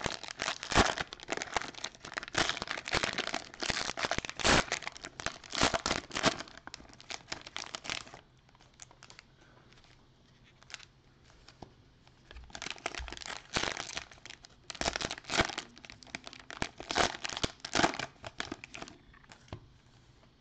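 Plastic wrapper of a trading-card cello pack crinkling and tearing as it is pulled open by hand. There is a dense spell of crackling, a pause of about four seconds, then more bouts of crinkling.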